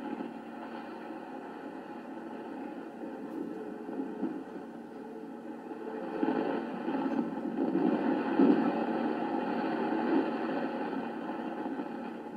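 Steady rushing noise of a sailing ship under way at sea, water and wind on deck, swelling from about six seconds in and easing near the end.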